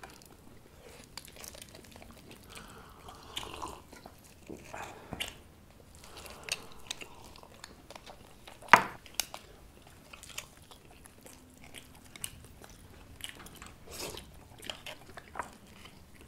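Close chewing and biting of boiled sheep's head meat, with scattered small clicks and knocks from knife and tableware; a sharp knock a little under nine seconds in is the loudest sound.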